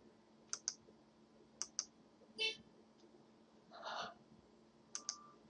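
Computer mouse clicking: three quick pairs of press-and-release clicks, with a short electronic beep about two and a half seconds in and a brief hissing sound about four seconds in.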